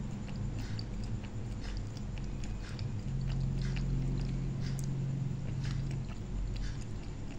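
A steady low hum, a little stronger in the middle, with faint scattered soft clicks from fingers handling and pulling apart soft jelly candies.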